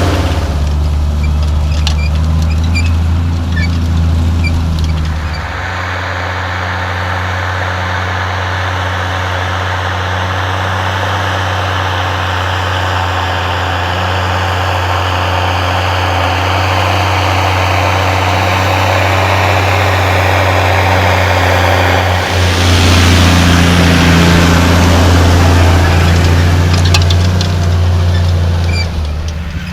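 New Holland M115 tractor's six-cylinder 7.5-litre turbo diesel running steadily under load, pulling a mounted tine-and-disc cultivator through the soil. The sound grows louder about three-quarters of the way through.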